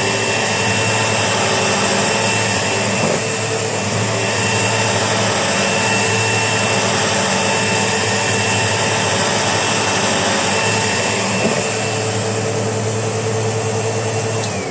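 Sebo X4 Excel upright vacuum cleaner running steadily at full power with a constant motor whine. Near the end it is switched off, and the whine falls in pitch as the motor winds down.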